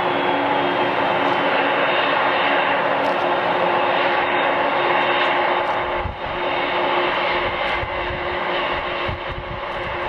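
Jet engines of a four-engine airliner running, a steady loud rushing noise with two steady hum tones under it. A deeper low rumble joins about six seconds in.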